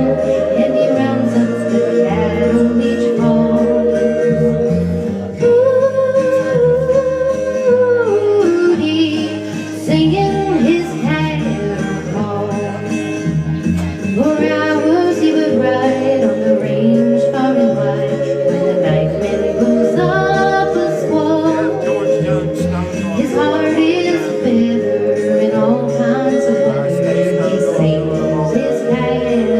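Country song with a solo voice singing and yodeling over a guitar and a stepping bass line, played back pitched up from the original recording.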